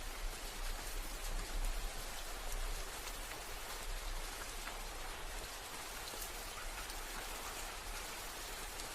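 Steady rain falling and pattering on a surface, an even hiss with scattered individual drop ticks and a faint low rumble underneath.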